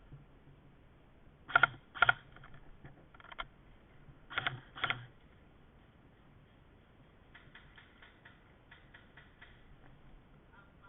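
Airsoft guns firing: two sharp shots about half a second apart, then another pair about three seconds later, followed near the end by a run of fainter, quicker clicks.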